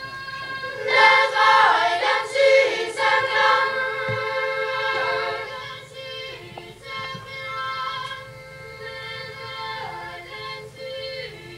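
Boys' choir singing in sustained chords, swelling loud about a second in and dropping to a softer passage from about five seconds in.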